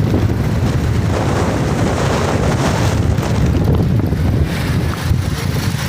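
Strong, gusty wind buffeting the microphone: a loud, fluttering low rumble.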